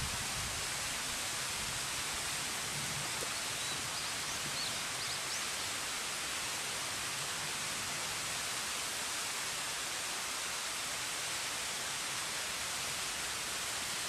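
Distant waterfall rushing as a steady, even hiss, with a few faint high chirps about three to five seconds in.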